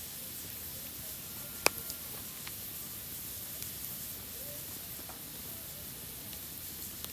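Campfire burning with a steady hiss and scattered crackles, one sharp pop about a second and a half in.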